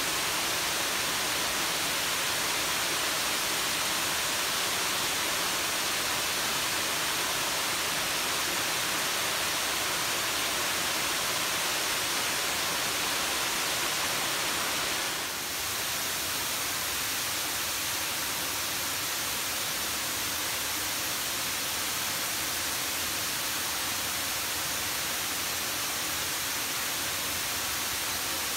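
Water pouring over an overflowing dam spillway and falling into the pool below: a steady rushing. It dips briefly about halfway through, then goes on a little quieter.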